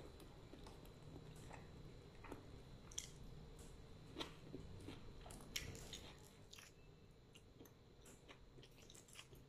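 Faint mouth sounds of someone eating rice and fried fish by hand: soft chewing with scattered small wet clicks and lip smacks, a few sharper ones about three, four and five and a half seconds in.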